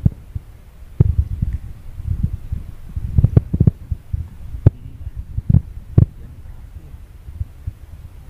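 Wind buffeting the microphone in low, uneven rumbling gusts, broken by several short thumps of the camera being handled while moving through tall weeds.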